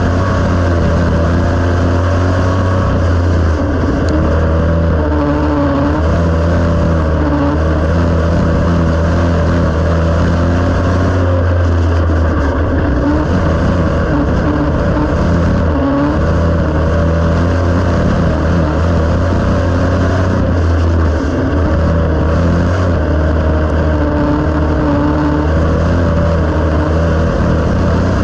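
Dirt-track race car's engine running hard at racing speed, heard loud from inside the cockpit, its pitch easing and picking up again a few times as it goes around the track.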